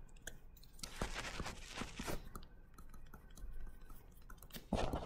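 Faint scratching and tapping of a stylus writing on a tablet: short clusters of small clicks and scrapes.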